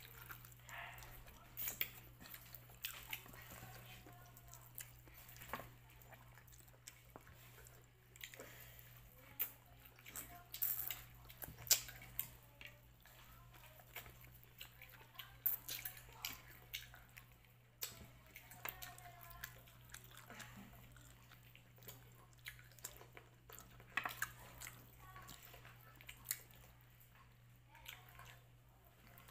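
Close-miked eating sounds: wet lip smacks, chewing and finger-sucking as meat is picked off bones by hand, in short irregular clicks over a steady low hum.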